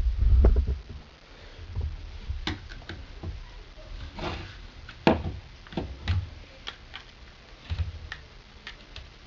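A seatbelt retractor being handled and opened up by hand: low handling bumps in the first second, then irregular light clicks and ticks of its parts being worked apart.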